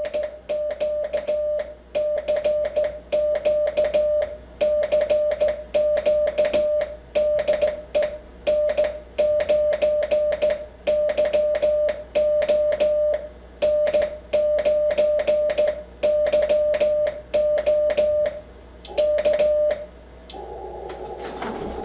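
Icom IC-7300's Morse code sidetone: one steady mid-pitched tone keyed on and off by hand on a straight key in dots and dashes, the key clicking with each press. About 20 seconds in the keying stops and a steady hiss comes up.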